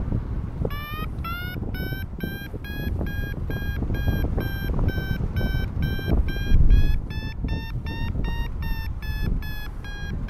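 Paragliding variometer beeping about three times a second, the pitch rising over the first couple of seconds and then holding steady: the climb tone that signals the glider is going up in rising air. Wind rushes over the microphone underneath.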